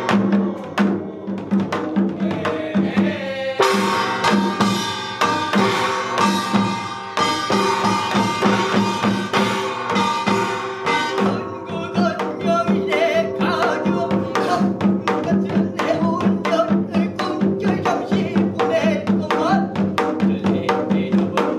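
Binari, a Korean ritual blessing song: a singer chants over a steady, quick beat of Korean drums.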